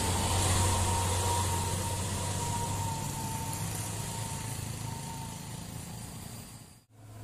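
Heavy box truck's diesel engine running and fading as the truck pulls away, a steady low hum with a thin whine that sinks slightly in pitch as it goes. The sound cuts off abruptly near the end.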